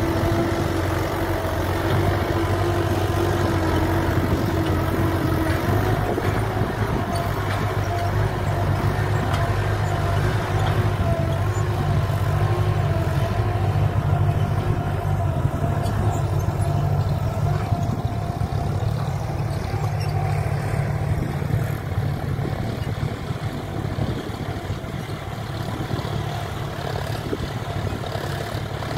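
Diesel tractor engine running steadily under load, pulling a tine cultivator through the soil. A higher whine fades out about six seconds in, and the sound eases slightly near the end.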